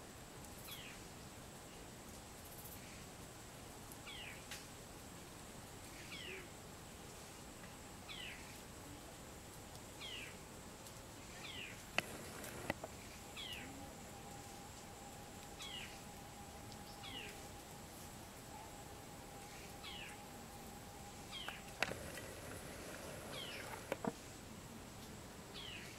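An animal's short falling call, high note sliding down, repeated every one to two seconds, over a faint steady high tone; a few sharp clicks near the middle and toward the end.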